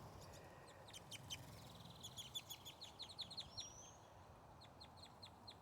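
Faint chirping of small songbirds: a run of short high chirps, with a brief rising whistle about halfway through.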